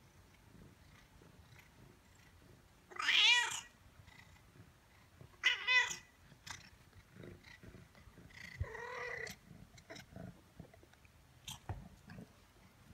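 Newborn Savannah kittens mewing: three short, high-pitched cries about three and five and a half seconds in, and a longer one around nine seconds in, with soft rustling clicks between.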